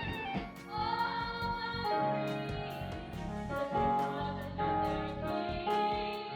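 A song with singing: held, stepping sung notes over an instrumental backing with a regular percussive tick.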